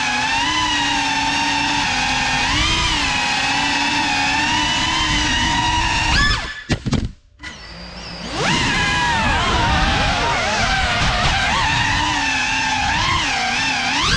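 Motors and propellers of a GEPRC CineLog 35 cinewhoop FPV drone whining, the pitch rising and falling with the throttle. About six and a half seconds in, the motors are cut and nearly fall silent for about a second, then spin back up.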